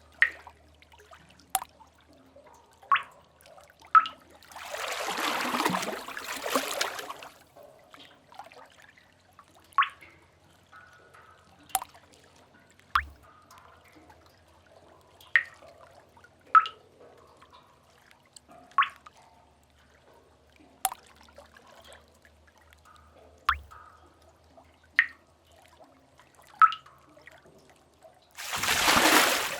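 Water drops falling into a cave pool, plinking one at a time every second or two. Two swells of wave wash surge in and fade, one about five seconds in and a louder one near the end.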